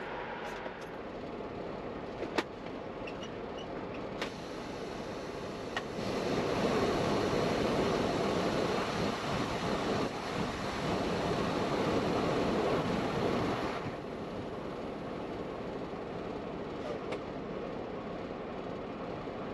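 Semi truck engine idling, with a couple of sharp clicks early on. About six seconds in, a louder steady rushing noise starts and runs for about eight seconds before dropping back to the idle.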